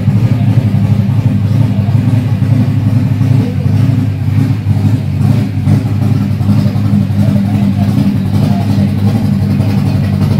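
Chevrolet inline-six Turismo Carretera racing engine with a twin-choke carburettor, idling steadily at an even speed.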